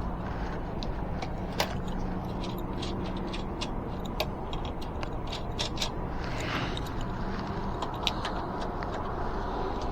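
Hand tools working loose the nuts on an e-bike's rear hub-motor wheel: irregular light metallic clicks and clinks, over a steady low hum.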